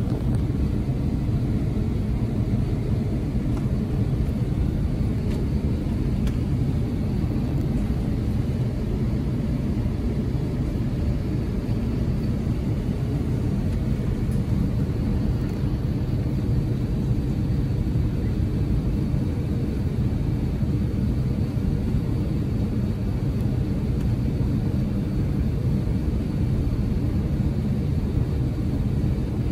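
Steady low cabin rumble inside an Airbus A350-900 as it taxis, its Rolls-Royce Trent XWB engines at low taxi thrust.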